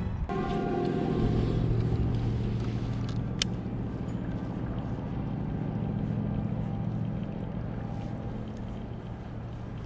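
A motor engine running with a low steady hum, fading slowly toward the end. A single sharp click about three and a half seconds in.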